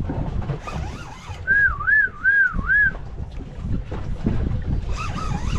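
A person whistling a warbling note that swings up and down three times, over a steady low rush of wind and water. A shorter, fainter wavering whistle comes near the end.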